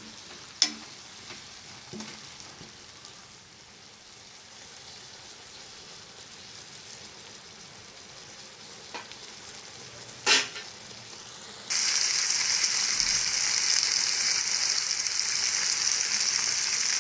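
Mustard, garlic and onion masala paste sizzling in hot oil in a kadai as it is sautéed, with a couple of sharp knocks of the spatula on the pan. About two-thirds through, the sizzling suddenly becomes much louder and holds steady.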